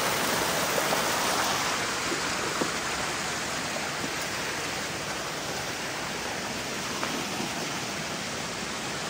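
Steady rush of flowing water, like a stream or small waterfall, getting gradually a little quieter.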